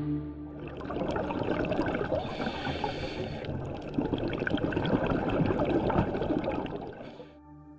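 Water bubbling and gurgling: a dense crackling wash of noise that starts about a second in and cuts off suddenly near the end.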